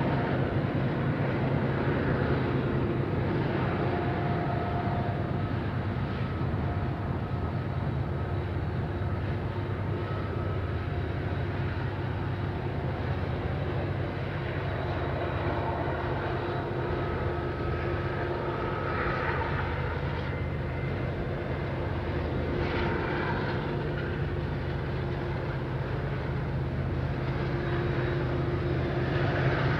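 Several Union Pacific diesel locomotives hauling a freight train, their engines running with a steady low drone heard from a distance.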